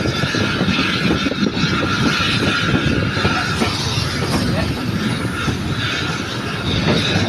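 Train running along the track, a steady rumble with continuous rattling and a hiss, as heard riding aboard.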